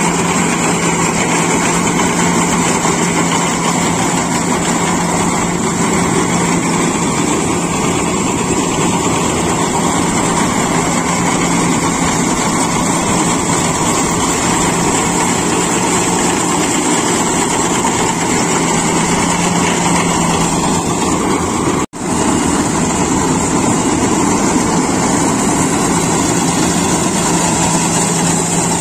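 Iseki rice combine harvester running while it cuts and threshes standing ripe rice: a loud, steady engine and machinery drone with a constant low hum.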